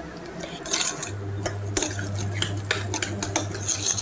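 A spoon scraping and clinking against a stainless steel saucepan as a coarse green pea mixture is stirred. A low steady hum comes in about a second in.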